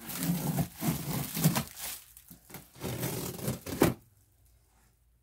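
A large knife cutting and scraping through packing tape and cardboard on a shipping box, in several rough strokes, with a sharp knock just before four seconds in.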